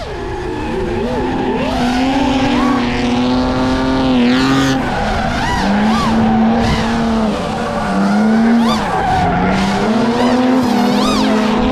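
Drift car engine held at high revs, the pitch dipping briefly and climbing back several times as the throttle is worked, with tires squealing and skidding through a slide.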